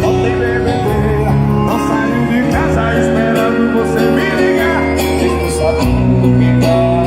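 Music with guitar and a singing voice over strong bass, played loud through a paredão, a car sound-system wall with subwoofers.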